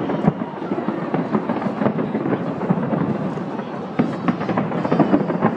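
A large fireworks display going off continuously: dense, rapid crackling and popping of many shells at once. A sharper burst of bangs comes about four seconds in.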